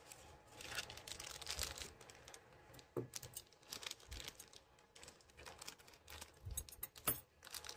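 Faint crinkling and rustling of a toy blind-bag wrapper as it is handled and cut open with scissors, with a few sharp clicks.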